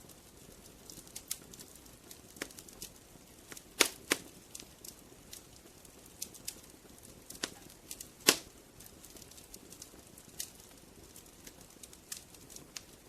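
Burning firewood crackling: irregular sharp pops and snaps over a faint low hiss of the flames, with two louder pops about four seconds in and one just past eight seconds.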